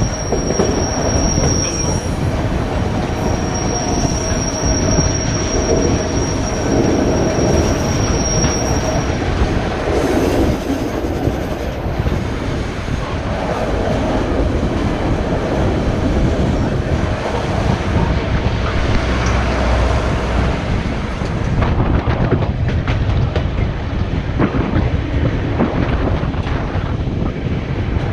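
Narrow-gauge passenger train rolling along, its wheels clicking over the rail joints, with a thin high wheel squeal through roughly the first third. The noise is loud and close while the train runs alongside another train's cars, then thins about three-quarters of the way through once the track beside it opens up.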